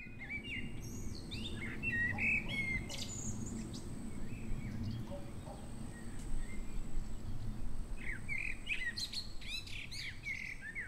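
Several songbirds chirping and singing in short, quick phrases, busiest near the end, over a steady low rumble.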